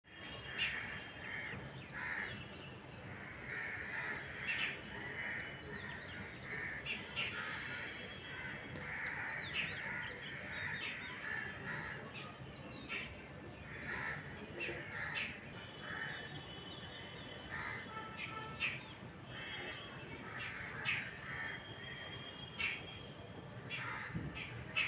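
Crows cawing over and over, with other small birds chirping and whistling among the caws.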